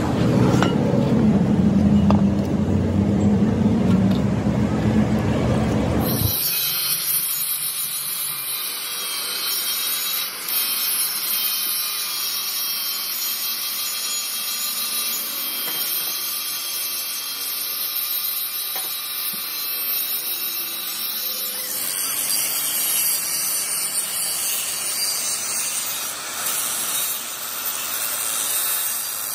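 Mechanical workshop noise: a dense low rumble that cuts off suddenly about six seconds in, giving way to a steady high-pitched hiss that shifts character again near the end.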